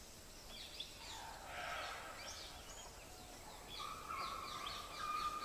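Forest ambience of several birds chirping with short quick calls over a soft background hiss, with one longer held whistle near the end.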